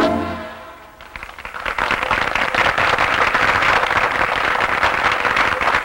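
A band's last chord dies away within the first second, then a crowd's applause swells up and carries on steadily.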